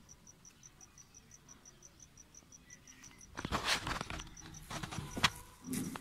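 A cricket chirping steadily, about four short high pulses a second. From about three and a half seconds in, louder rustling and handling noise takes over, with one sharp click a little after five seconds.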